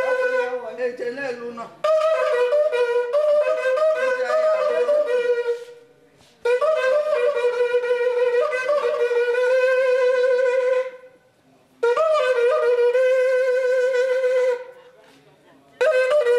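A traditional wind instrument blown in long held phrases with a wavering tone, each phrase a few seconds long with short breaks between them.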